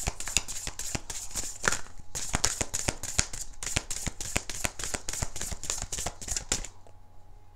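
A tarot deck being shuffled by hand: a fast run of light card slaps and riffles that stops near the end.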